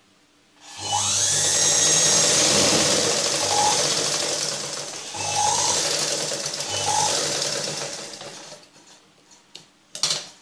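Sewing machine running as it stitches a sleeve onto a dress bodice, starting about a second in, easing off briefly in the middle, then stopping. A single sharp click near the end.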